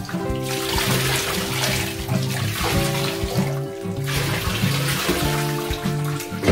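Water poured from a bowl splashing over a wet cat and into a bathtub, with background music playing under it, a repeating bass line and held notes.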